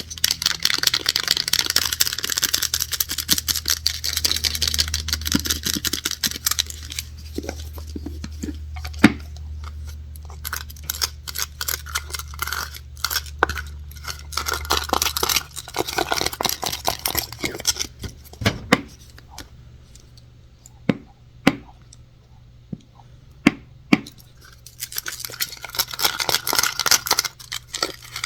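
Scratching and tapping on objects. Dense, fast scratching runs for the first several seconds, then scattered taps mixed with scratching, then a run of single sharp taps about a second apart, and scratching again near the end. A low hum underneath stops about halfway through.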